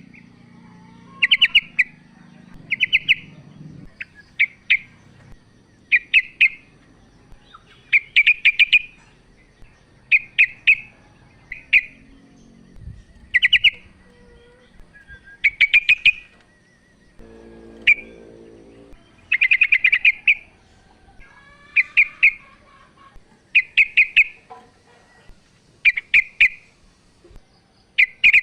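Female sooty-headed bulbul calling to a male: short chattering phrases of a few quick notes, repeated about every one to two seconds.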